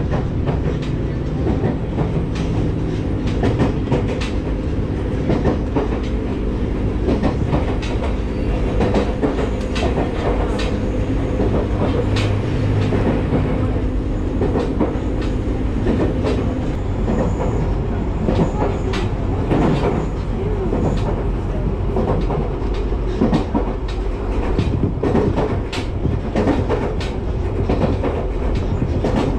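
Diesel railcar running along the track, heard from inside the car: a steady engine drone under rumbling wheels, with wheels clacking over rail joints. The engine's steady tone drops away a little past halfway, leaving the rolling rumble and the joint clicks.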